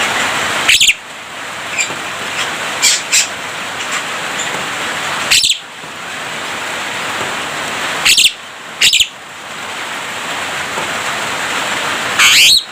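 Javan myna (jalak kebo) giving short, loud, high whistles and chirps, some gliding in pitch, every few seconds over a steady hiss.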